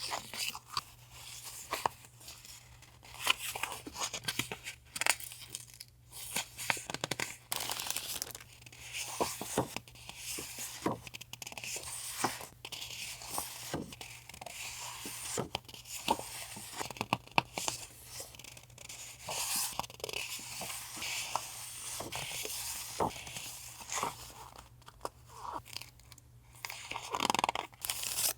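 Paper and plastic packaging rustling, crinkling and tearing as stationery items are unpacked and handled, with frequent small taps and clicks.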